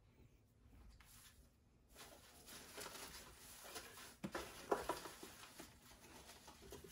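Faint rustling and a few light knocks from hands rummaging through a cardboard box of shredded paper packing, starting about two seconds in.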